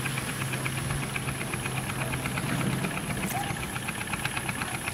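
A small engine running at idle, with a fast, even ticking rhythm over a low hum that drops away a little over halfway through.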